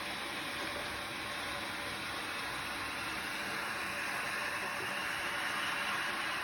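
Walnut hulling machine running: a steady, even rushing noise with no distinct knocks or beats, getting slightly louder in the second half.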